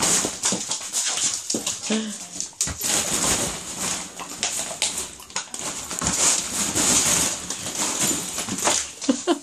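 Hollow plastic ball-pit balls clattering and rustling as a cocker spaniel digs and plunges through them, with a short whine from the dog about two seconds in.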